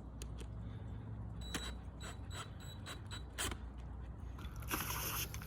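Scattered sharp clicks and creaks of a garden hose fitting being handled, then water starting to hiss and spray from the hose about four and a half seconds in.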